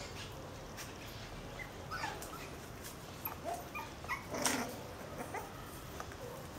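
Staffordshire bull terrier puppies, about five weeks old, whimpering and squeaking in many short, faint cries, with one brief louder sound about four and a half seconds in.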